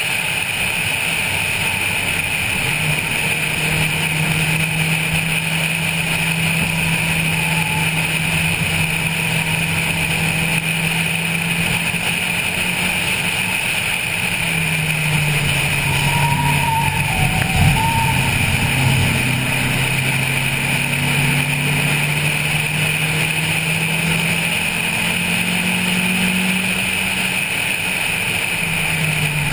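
Honda Civic 1.5's engine running hard at speed, heard from the car's roof over a steady rush of wind and road noise. About halfway through the engine note drops, then climbs steadily again, with a brief thump a little after the drop.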